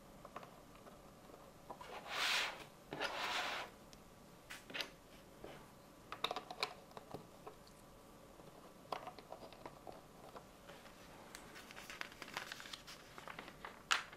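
Small plastic Lego bricks clicking and rattling as they are handled, pulled apart and pressed back onto the baseplate walls, with two short rustling scrapes about two and three seconds in.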